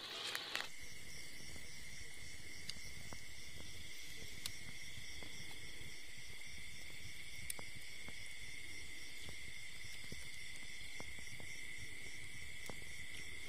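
Steady chorus of night insects, an even high trill with several layered pitches, with a few faint campfire crackles.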